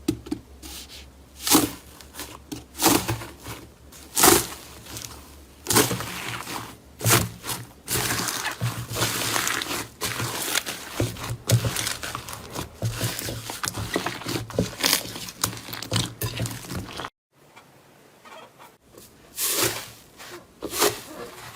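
Slime being squeezed and pressed by hand, giving many short sticky pops and crackles, densest in the middle; the sound cuts off abruptly about three-quarters of the way through, then quieter pops resume.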